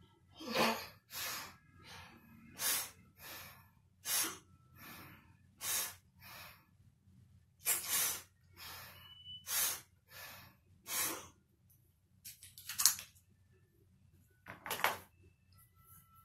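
Quick, gasping breaths from a person with asthma struggling for air while using an inhaler, each a short hiss. They come about one to two a second, then space out with longer gaps near the end.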